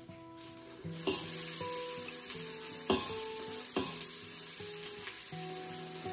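Chopped red onion sizzling in hot oil in an Instant Pot on its high sauté setting. The sizzle starts about a second in, as the onions hit the pan, with a few sharp knocks.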